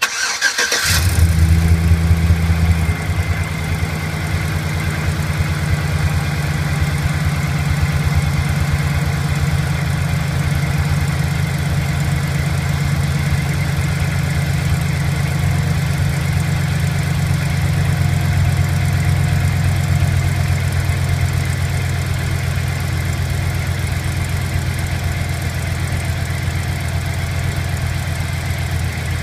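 2008 Chevy Silverado engine started cold: it catches about half a second in, runs faster for the first couple of seconds, then settles into a steady idle. A ticking comes from the left side at low rpm, which the owner tags as an exhaust leak.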